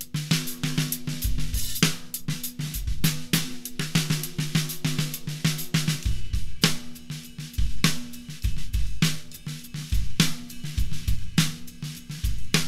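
Drum kit being played in a steady groove: a deep 14x10 segmented yellow pine snare drum over bass drum, hi-hat and cymbals. The snare rings with a low tone that carries on between hits.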